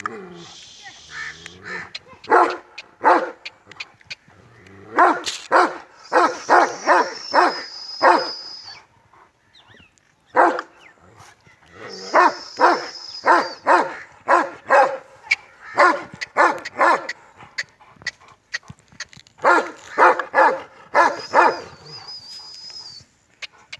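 Dogs barking in quick runs of several barks a second, with short pauses between the runs. A high, thin steady tone sounds in the background three times, each for a couple of seconds.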